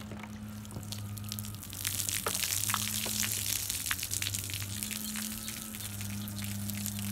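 Water pouring and splashing from a cut plastic soda bottle onto pavement, a hissing spatter with many small drips and ticks that starts about two seconds in. A low hum comes and goes underneath.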